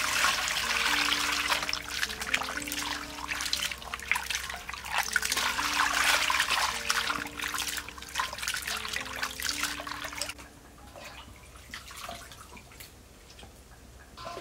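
Water pouring into a steel bowl and splashing as hands rub and rinse shelled snail meat. The pouring stops about ten seconds in, leaving quieter drips and small splashes as the meat is lifted out.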